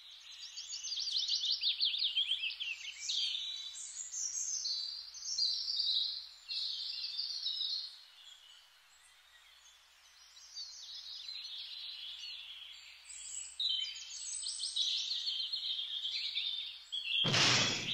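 Songbirds singing and chirping in quick high phrases, pausing for about two seconds in the middle. Near the end a brief loud rushing noise cuts in.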